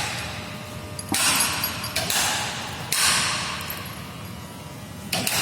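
A crane hoisting a diesel crankshaft out of its engine block: three sudden, noisy bursts about a second apart, each fading away, and another near the end.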